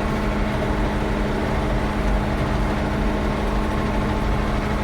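Ford 9700 tractor's six-cylinder diesel engine running steadily in road gear, an even, unchanging drone with a strong low hum.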